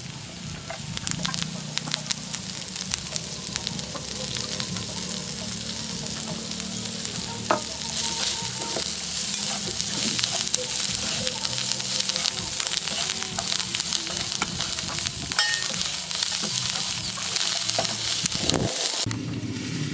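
Food sizzling in hot oil in a pan, with the clicks and scrapes of a utensil stirring it. The sizzle grows louder about a second in and again partway through.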